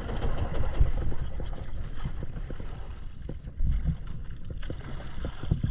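Uneven wind and water noise buffeting an action camera's microphone, heaviest in the bass, with small irregular knocks throughout.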